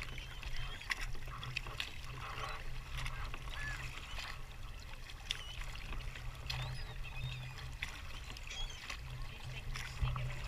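Kayak paddle strokes: the blade dipping and water splashing, dripping and lapping at the hull in many small spatters and clicks, over a low steady rumble.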